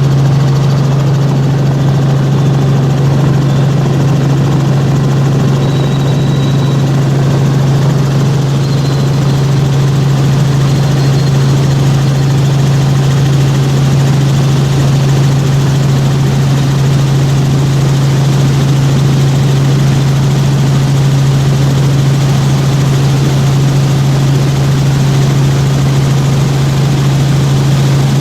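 Helicopter in steady flight, heard from inside the cabin: a loud, unchanging low drone from the rotor and engine over a constant rush of noise.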